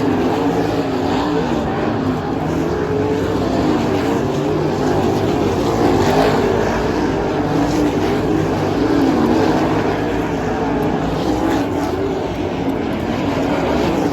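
Sprint car engines running hard on a dirt oval during hot laps, a loud continuous sound with several engine notes rising and falling in pitch as the cars circle the track.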